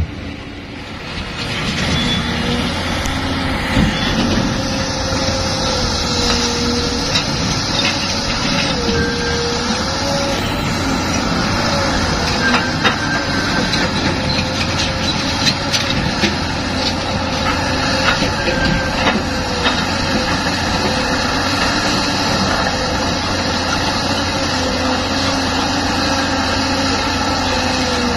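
Caterpillar 320C hydraulic excavator working: diesel engine and hydraulics running steadily under load, with a whine that wavers up and down in pitch as it digs and swings. Scattered knocks come from soil and rocks landing in a dump truck's steel bed.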